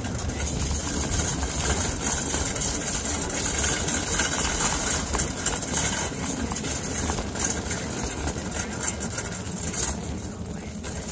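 Shopping cart rolling over a store floor, its wheels and frame making a steady rolling noise through the cart-held camera that eases a little near the end.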